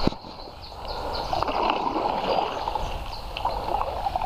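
Double-bladed paddles stroking through river water beside an inflatable canoe: steady splashing and trickling, with a sharp knock at the start.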